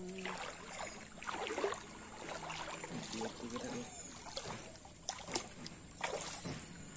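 Water swishing and sloshing irregularly around legs wading through a shallow stream, with a couple of sharper splashes near the end.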